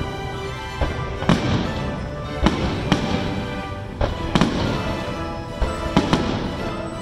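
Aerial fireworks bursting, about eight sharp bangs a second or so apart, some in quick pairs, over background music.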